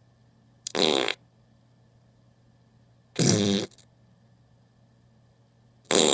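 Three short fart sound effects, one after another, each lasting about half a second with a couple of seconds of quiet between them. The third begins just before the end.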